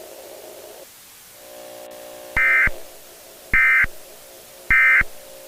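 Emergency Alert System end-of-message signal: three short bursts of SAME digital data tones, about a second apart. Under them runs a low steady drone.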